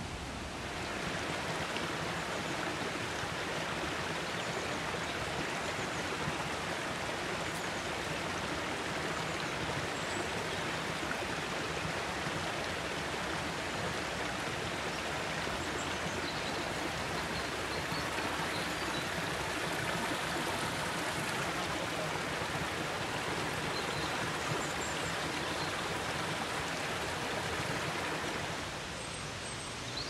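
Fast-flowing mountain stream rushing steadily, a constant hiss of water over rocks that sets in about a second in and cuts off near the end.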